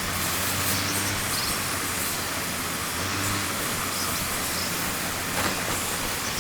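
A machine running steadily, with an even hissing rush and a low hum that swells and fades every second or two.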